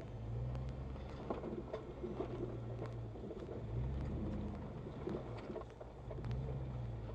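Off-road vehicle's engine running at low revs, swelling and easing a few times as it crawls over rough ground, with scattered clicks and knocks from tires on rock and gravel.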